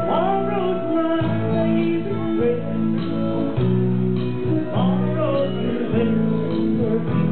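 A singer's voice through a microphone over amplified guitar backing music.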